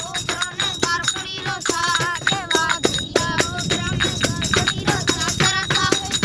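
Rajasthani folk music played by a small group: a wavering melodic line over rapid, sharp percussion clicks.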